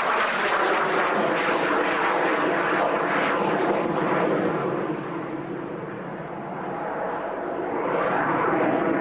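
de Havilland Sea Vixen's twin Rolls-Royce Avon jet engines roaring as it flies a display pass, the noise easing off around the middle and swelling again near the end.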